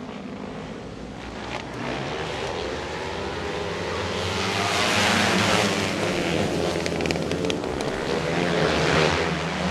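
A pack of winged outlaw go-karts' engines accelerating on the green flag. The sound grows steadily louder and is loudest about five seconds in and again near the end.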